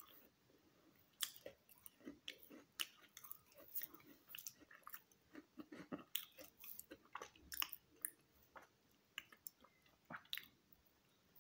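A person chewing a bite of crunchy chocolate chip cookie: faint, irregular crunching crackles.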